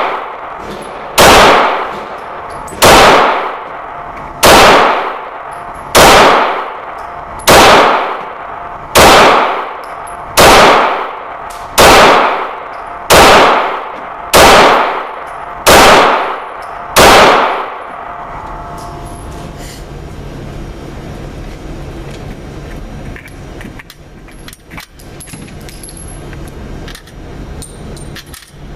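Glock 19 9mm pistol fired twelve times at a slow, even pace, about one shot every second and a half, each shot ringing and echoing off the walls of an indoor range. After about 18 seconds the firing stops, leaving quieter clicks and small metallic rattles.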